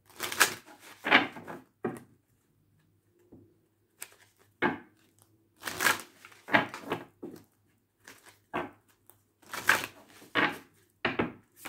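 A deck of tarot cards being shuffled by hand, in about a dozen short, irregular rustling strokes with brief pauses between them.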